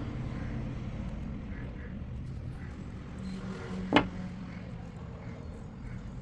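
Steady low background rumble with a single sharp click about four seconds in.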